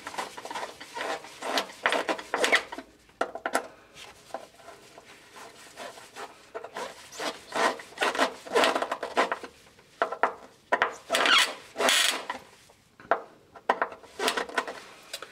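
Screwdriver being turned to tighten the screws of a metal earthing terminal block, clamping a bonding conductor: a run of short, irregular scraping and rasping strokes as the blade works in the screw slots and the gloved hand turns the handle, with brief pauses between bouts.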